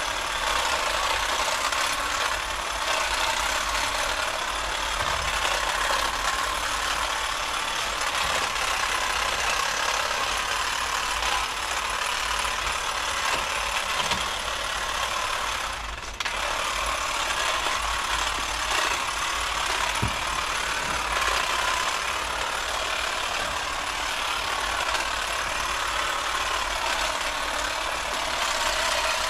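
Cordless pole hedge trimmer running steadily, its reciprocating blades cutting through a hedge, with one brief drop in level about halfway through.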